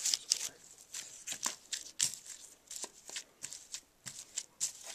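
Irregular crinkling and rustling of plastic and paper wrappers being handled, a quick run of short crackles.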